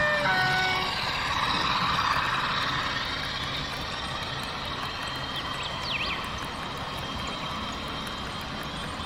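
Model train running on a layout, a steady rumble throughout. A stepped, horn-like tone ends just after the start, and a brief high squeal comes about six seconds in.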